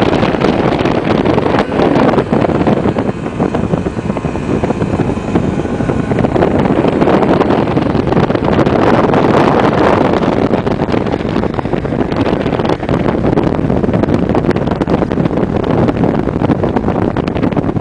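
Loud, steady rush of wind buffeting the microphone over the running of a vehicle moving across snow, with a snowmobile driving close alongside. No single engine tone stands out above the noise.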